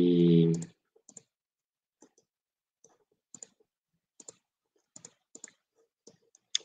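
Scattered, faint computer-mouse clicks, several in quick pairs, with near silence between them.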